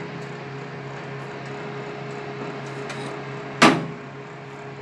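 Steady low hum with a single sharp clunk about three and a half seconds in, from handling the open convection microwave oven as a muffin tray goes in.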